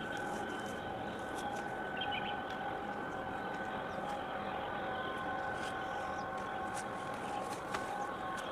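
Steady machinery drone from a ship and harbour at a distance, with a few faint whining tones held underneath it; another tone joins about five seconds in.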